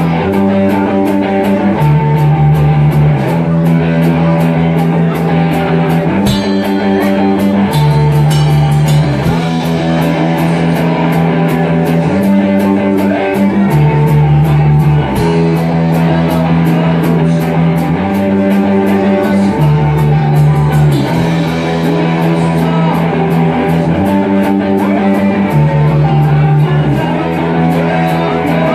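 Rock band playing live: electric guitars and bass on a repeating chord pattern that changes every second or two, over a steady drum beat with regular cymbal strokes.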